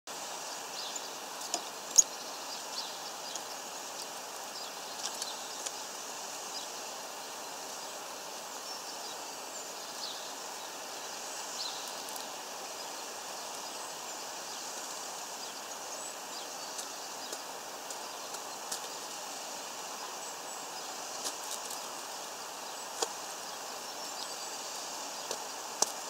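Small birds at a seed feeder: scattered sharp taps and clicks of pecking and landing on the seeds and metal perch rods, the loudest about two seconds in, over a steady background hiss.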